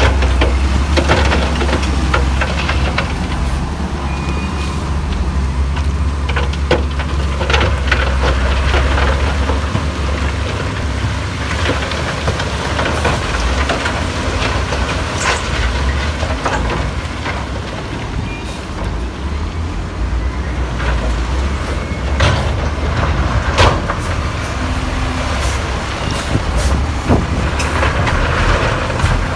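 Heavy diesel earthmoving machinery running at a steady low rumble, with scattered clanks and knocks throughout.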